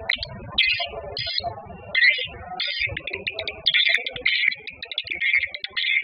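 Edible-nest swiftlet calls from a lure-sound recording, the kind played in swiftlet houses to draw the birds in. Short bursts of high chirping give way, after about three and a half seconds, to dense continuous twittering.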